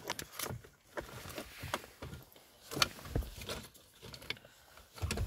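Plastic car-interior trim being handled: scattered clicks and knocks as a centre-console tray is fitted around the gear selector, with one sharper knock a little under three seconds in.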